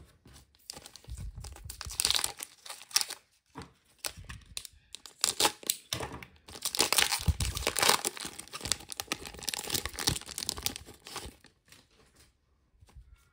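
Trading card pack wrapper being torn open by hand and crinkling, in several bursts over about ten seconds with short pauses, dying away near the end.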